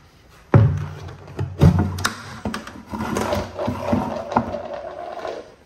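A plastic bucket being handled, its lid pulled off and the bucket set down: two heavy thumps about a second apart, then a few seconds of plastic scraping and rattling.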